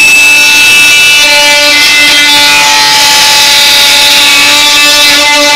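Oscillating multi-tool with a metal-cutting blade running flat out at its single speed, cutting through the rivets that join two metal panels. It makes a loud, steady whine with several tones, and a lower note comes in about a second in as the blade bites.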